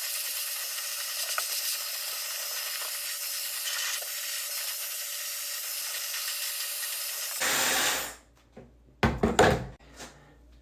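Handheld hair dryer running steadily on its high-speed setting, a strong airy hiss with a faint hum, switched off about seven and a half seconds in. It is followed a second or so later by a short loud knock.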